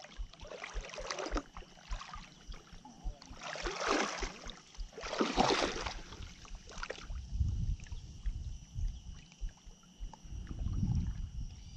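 Water sloshing against a small boat in several soft swishes, then a low wind rumble on the microphone.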